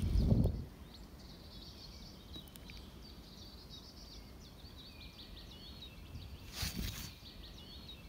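Small songbird twittering: a run of varied high chirps and trills. Wind rumbles on the microphone in the first half-second, and a short rustle of wind noise comes about six and a half seconds in.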